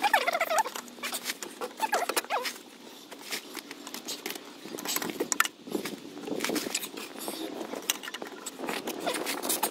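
Metal clinks, scrapes and rustling as a replacement alternator is worked by hand up into its mounting among the engine brackets, with high squeaky chirps in the first few seconds.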